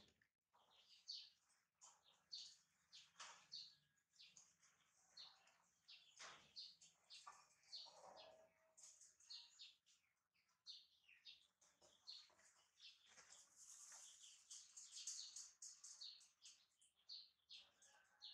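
Faint chirping of small birds: many short, high calls in quick succession, busiest a little past the middle.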